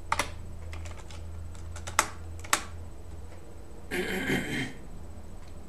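A few computer keyboard keystrokes: a quick pair of clicks just after the start, then single clicks about two and two and a half seconds in, over a low steady hum. A short noisy sound comes about four seconds in.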